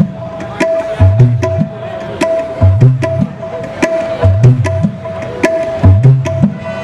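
Dangdut gendang (kendang) drum played solo through the PA in a repeating groove. Deep bass-head strokes bend in pitch, alternating with sharp, ringing high slaps, the pattern coming round about every second and a half.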